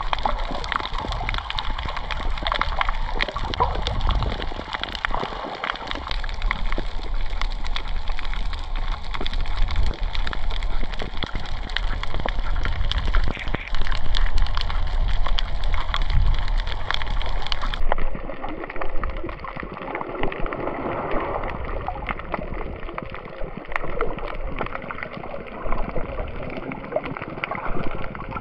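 Water sloshing, splashing and gurgling close to the microphone. There are many small splashes and drips. About two thirds of the way through, the sound cuts to a duller, more muffled stretch of the same.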